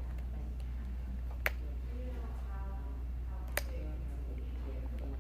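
Two sharp clicks about two seconds apart as a small screwdriver works on a Samsung Galaxy S3 being taken apart, over a steady low hum.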